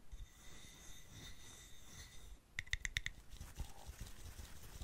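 Fingertips tapping and scratching on the base of a flowerpot holding artificial flowers. A quick run of about six taps a little past halfway rings with a clear tone, with faint scratching around it.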